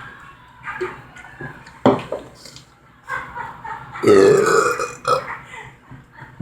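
A person's loud, drawn-out burp about four seconds in, lasting about a second. A sharp knock comes about two seconds earlier.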